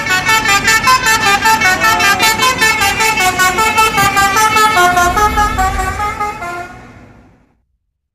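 Bus telolet horn, a multi-trumpet musical air horn, playing a fast pulsing tune of about five or six notes a second that steps up and down in pitch, over a low bus-engine rumble. It fades out about seven seconds in.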